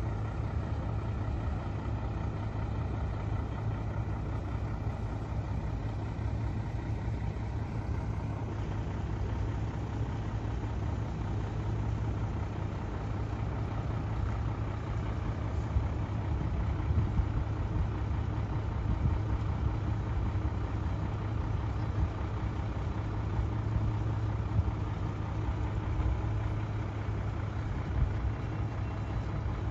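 Parked fire engine idling: a steady low engine rumble with no change in pace.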